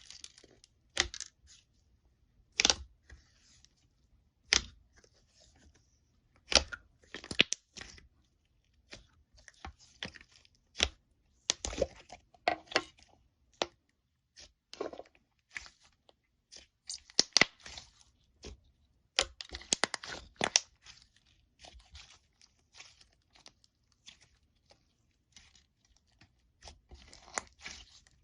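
Slime being squished and stretched, giving irregular sticky pops, clicks and crackles with short pauses between them.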